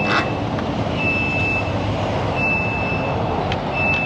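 An electronic beeper sounding one high, even tone about every second and a half, over steady background noise, with a single short clack right at the start.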